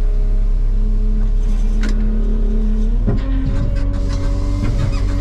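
Fendt 700 Vario tractor's diesel engine running steadily, heard from inside the cab. About three seconds in, its pitch steps up slightly, with a few clicks and knocks.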